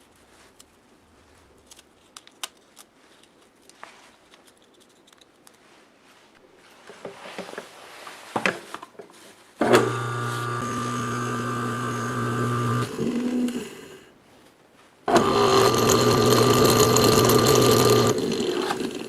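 Restored old drill-press electric motor test-run: after a few light handling clicks, it starts abruptly and runs with a steady hum for about three seconds, then is switched off and winds down. It is started again a couple of seconds later and runs steadily before winding down near the end.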